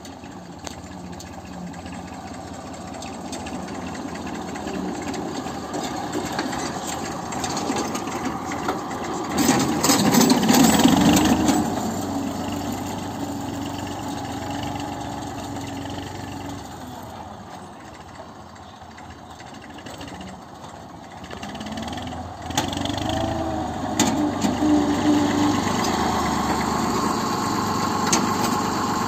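Massey Ferguson 35 tractor engine running steadily under load while pulling a seed drill, swelling loudest about ten seconds in, fading a little, then coming close again in the second half. A few sharp clanks a little past the middle.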